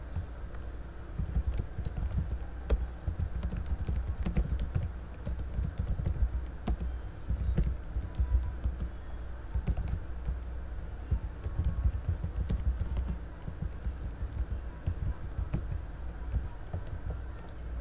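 Typing on a computer keyboard: irregular runs of key clicks with dull low thumps from the keys striking.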